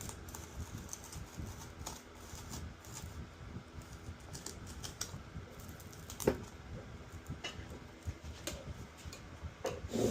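Unboxing handling noise from the parts and packaging of a RØDE PSA1+ studio mic arm: scattered small clicks, taps and rustles, with one sharp knock about six seconds in.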